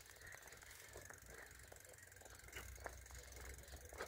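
Faint sounds of a bicycle being ridden: scattered light clicks and rattles over a low rumble.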